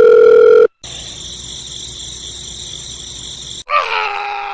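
A loud steady electronic beep that cuts off less than a second in, then a high electronic ringing buzz for about three seconds, followed near the end by a cartoonish voice sliding down in pitch.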